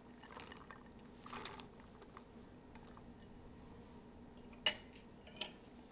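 Diced onion tipped from a small bowl onto raw ground beef: soft scraping and rustling, then a sharp clack of dish against dish about three-quarters of the way through, with a lighter knock after it.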